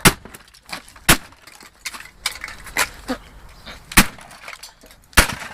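A sledgehammer striking a plastic vacuum cleaner housing, about five hard blows a second or so apart, with the plastic cracking and breaking as it is smashed open to get at the motor.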